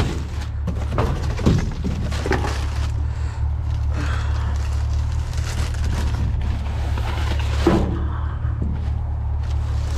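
Rummaging through trash in a dumpster: scattered knocks and rustling as items are moved, over a steady low hum.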